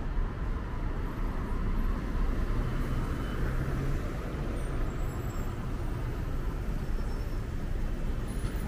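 Street traffic: a steady rumble of vehicle engines running and passing, with an engine hum that swells twice.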